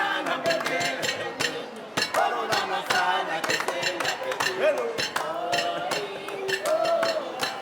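A voice singing over many sharp, irregular knocks and clinks.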